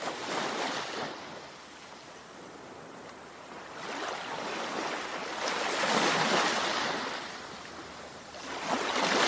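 Sea waves washing in: a hiss of surf that swells and fades slowly three times, the largest swell in the middle.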